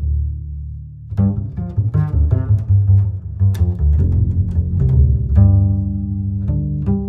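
Background music on low string instruments: a held note fading out, then a run of quick, short notes starting about a second in, with longer held notes near the end.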